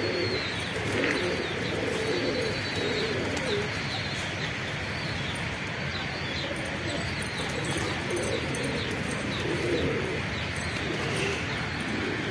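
Domestic pigeons cooing, low warbling coos coming on and off, with short high chirps of small birds mixed in.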